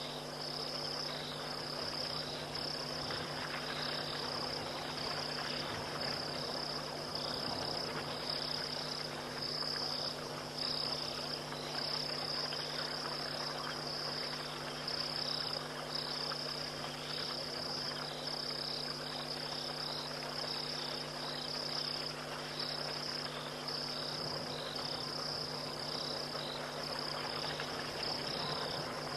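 Night insect chorus, crickets trilling in a continuous high-pitched pulsing stream, with a low steady hum beneath.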